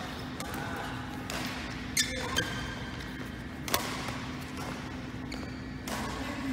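Badminton rally: sharp racket-on-shuttlecock hits a second or two apart, with squeaks of court shoes on the floor around the middle.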